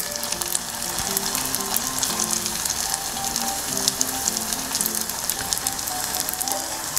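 Pork-filled wontons deep-frying in hot oil in a saucepan, sizzling and crackling steadily, with faint background music underneath.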